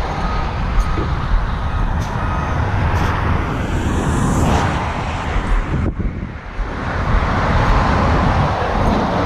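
Highway traffic noise: a steady rumble of vehicles, with one vehicle passing by about halfway through. A faint repeated beeping sounds in the first couple of seconds.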